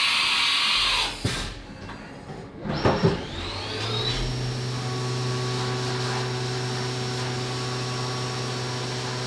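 CNC vertical milling machine: a steady hiss stops about a second in, a knock comes near three seconds, then the spindle spins up with a rising whine and runs on steadily as the face mill takes a first skim pass across a 7075 aluminium block under flood coolant.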